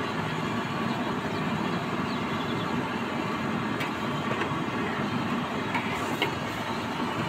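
Battered fish pakoras deep-frying in hot oil in a large karahi: a steady sizzle and bubbling, with a couple of faint clicks partway through.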